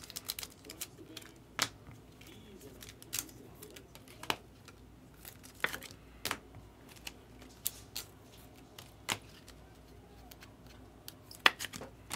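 Irregular sharp clicks and snaps of trading cards and packs being handled, roughly one every second, with the loudest snap near the end.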